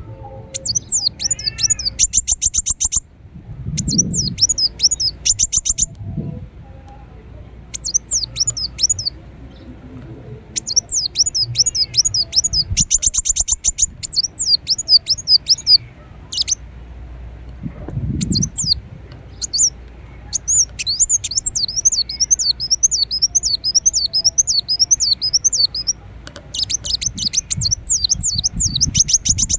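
Ruby-cheeked sunbird singing: bursts of high-pitched, quickly repeated rising-and-falling notes and fast chattering trills, a second or few at a time with short pauses between.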